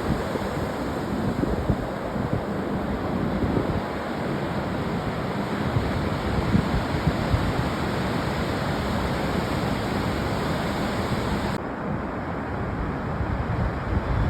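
Ocean surf washing in with wind buffeting the microphone: a steady rushing noise with uneven low rumbles. The higher hiss cuts off abruptly near the end.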